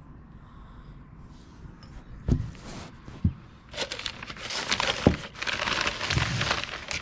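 Paper packing rustling and crinkling, louder from about four seconds in, with three dull knocks: items being unwrapped and lifted out of a box.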